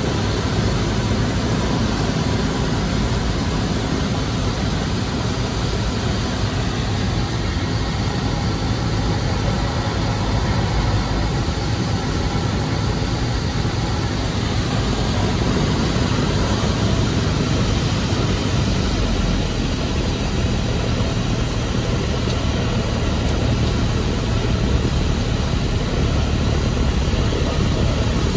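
Single-engine light airplane's piston engine and propeller running steadily, mixed with air noise, heard from inside the cabin during the descent on approach.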